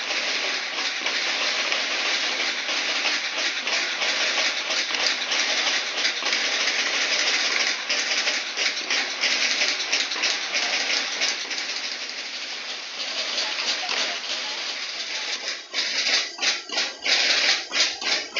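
School marching band's drums playing a dense, rapid rattle, which breaks into separate beats, several a second, in the last couple of seconds.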